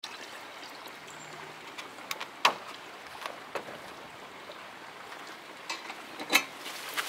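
Water poured from a jug into the tender of a live-steam model locomotive, with sharp clicks of the model's parts being handled: the loudest about two and a half seconds in and another near the end.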